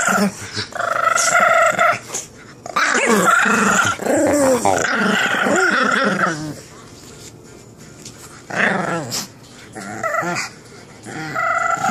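Pug growling while play-biting a person's hand and arm, in long bouts with a quieter lull a little past the middle and shorter bouts near the end.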